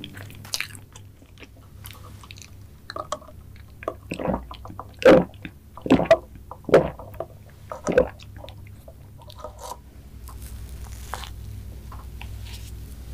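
Close-miked mouth sounds of eating soft cream-and-sponge mango cake: soft chewing, then five loud gulps, under a second apart, while drinking through a straw.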